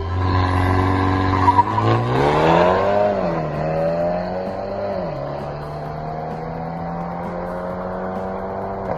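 A performance car's engine held at steady launch revs, then accelerating hard from a standing start. The pitch climbs and drops sharply at gear changes about three and five seconds in, then settles into a steady drone as the car pulls away.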